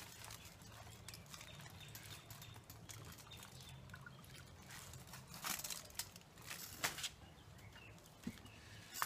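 Aluminium foil crinkling and rustling in a few short spells as a foil-wrapped rack of pork ribs is drained and lifted, over a low steady hum.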